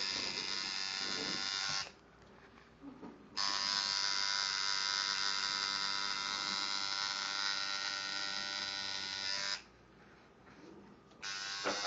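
Tattoo machine buzzing steadily as the needle works on the skin. It cuts off about two seconds in, starts again a second and a half later, and stops once more near the end before starting up again.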